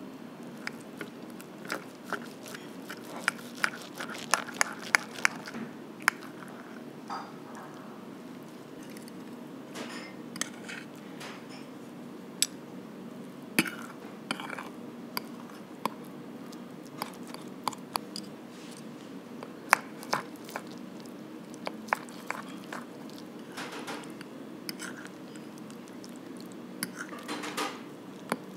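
Metal knife and fork clinking and scraping against a porcelain plate as grilled chicken with melted cheese is cut apart, in irregular sharp clinks over a steady low background hum.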